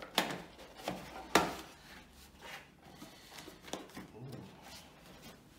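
Cardboard box being handled and opened: faint scuffing and rubbing of cardboard, with a few sharp knocks, the loudest about a second and a half in.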